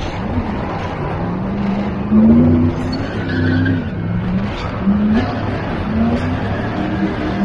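Ford 5.0 fuel-injected V8 of a drifting 1986 Isuzu Pup pickup, revving up and down again and again under throttle, over the hiss of sliding tyres. It is loudest about two seconds in.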